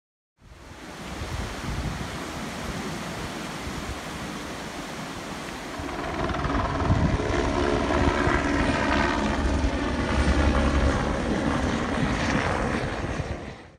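Floodwater rushing along a street in spate, a steady noise. About six seconds in, a helicopter's rotor and engine come in louder over it as it flies overhead.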